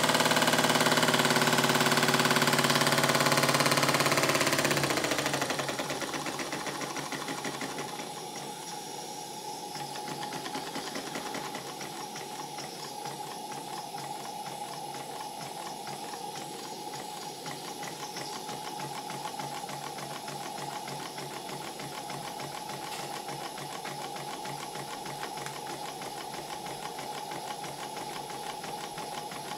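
Small horizontal single-cylinder model steam engine running on steam while bedding in, with a fast, even exhaust beat and the clatter of its crank and valve gear. A louder rushing hiss over the first few seconds falls away about five seconds in, leaving the steady running beat.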